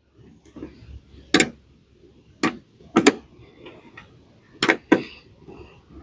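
Sharp, irregular clicks and light knocks of a T25 Torx screwdriver and screws being fed back into the plastic taillight housing, about half a dozen in all.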